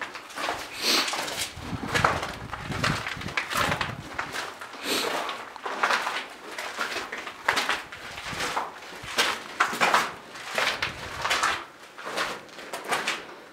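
Footsteps crunching and scuffing on a gritty rock tunnel floor as people walk through a narrow tunnel, an irregular run of one or two steps a second.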